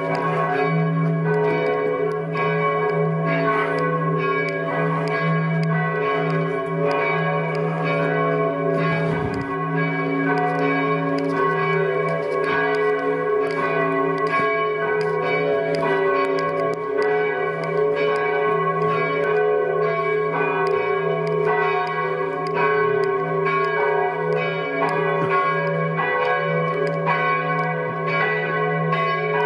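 Church bells ringing in a full peal, several bells struck over and over in quick succession above a steady low hum, echoing between stone walls.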